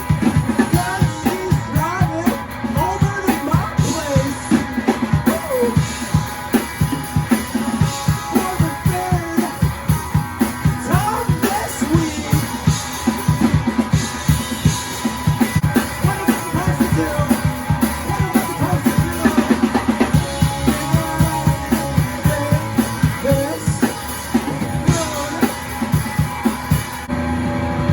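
A rock band playing a song live: a drum kit keeps a busy, steady beat under electric guitar.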